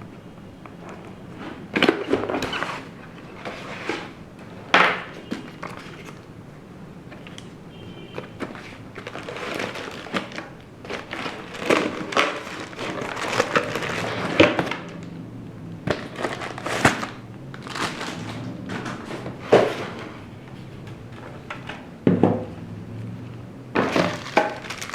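Unboxing a PC power supply: a cardboard box and its plastic packing being handled, with irregular thunks, knocks and crinkling.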